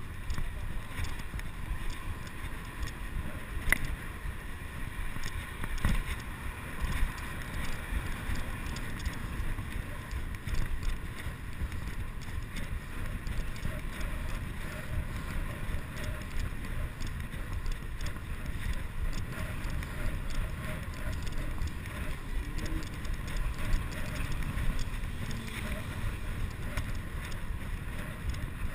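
Bicycle ridden fast over brick paving: tyre rumble and the bike's rattling, with wind buffeting the microphone, and a couple of sharper knocks about four and six seconds in.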